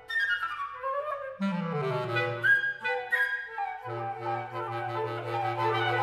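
Woodwind quartet of two flutes, clarinet and bass clarinet playing a contemporary chamber piece. Falling lines in the upper voices open the passage, and a low bass clarinet note enters about a second and a half in, slides down, then is held under the others from about four seconds in.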